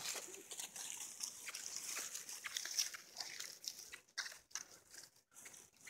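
Puppies scampering and playing in dry fallen leaves on grass, with scattered small crackles and rustles.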